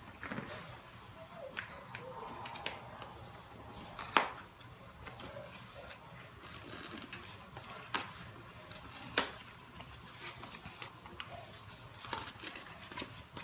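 Paper and cardboard toy packaging being torn open and handled: rustling and crinkling with a few sharp snaps, the loudest about four seconds in.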